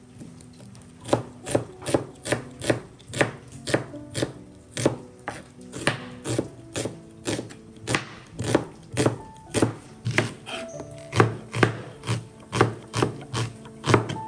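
Kitchen knife slicing an onion on a plastic cutting board, the blade knocking on the board in a steady rhythm of about two cuts a second, starting about a second in.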